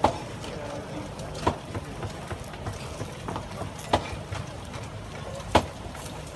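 Four sharp clacks, one to two seconds apart, as a serving utensil knocks against the metal pan and food trays while meat and onions are piled onto a tortilla, over a steady low hum.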